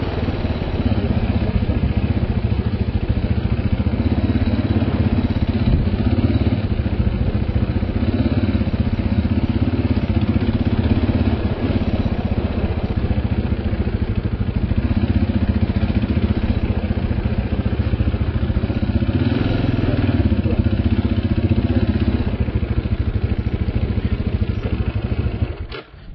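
KTM motorcycle engine running at a steady pace, with no change in speed, until the sound cuts off suddenly near the end.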